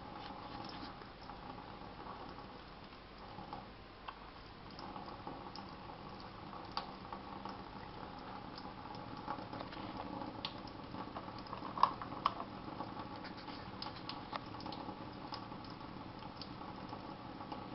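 Thin stream of tap water running into a stainless steel kitchen sink and splashing on a cat, with scattered small clicks and splashes; two sharper clicks about twelve seconds in.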